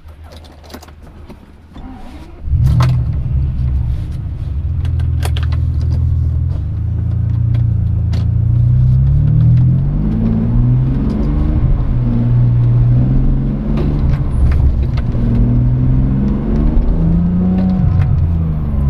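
Car engine heard from inside the car: after a quiet start with a few clicks, it comes in loudly about two and a half seconds in and pulls hard, its pitch climbing and dropping back several times as the car accelerates round the track.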